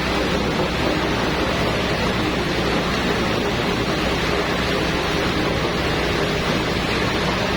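Stainless-steel MDM (mechanically deboned meat) machine running steadily: an even mechanical noise over a low hum, with no change in pace.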